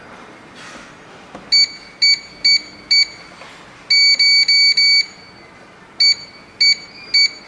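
A home alarm system's control panel beeping: about eleven short, high beeps in an uneven rhythm, four of them in a quick run about halfway through.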